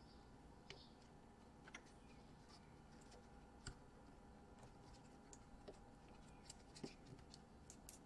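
Near silence with faint, scattered small clicks and ticks: a thin metal pick tool tapping and pressing against the DC jack cable and plastic chassis of an opened laptop while the cable is worked into place.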